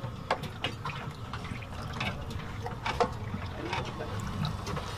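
Stall background noise: a low rumble with sharp clinks and knocks of steel utensils and vessels scattered through, and faint voices.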